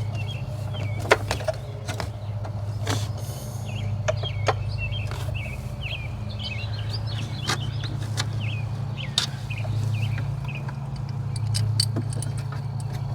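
Scattered metallic clicks and knocks as an ignition coil and hand tools are handled on a truck engine, over a steady low hum, with small birds chirping throughout.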